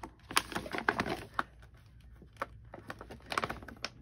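Clear plastic envelope crinkling and rustling as it is handled and lifted, in two bursts of quick crackles: one about a second in and another near the end.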